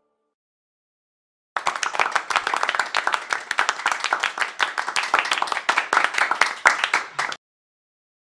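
Applause sound effect: many hands clapping rapidly, starting suddenly about a second and a half in and cutting off abruptly near the end.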